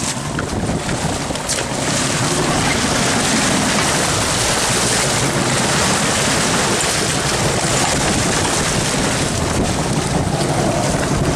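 Wind buffeting the microphone over the steady wash and splash of choppy sea water against the side of a fishing boat, where a hooked mahi-mahi is thrashing at the surface.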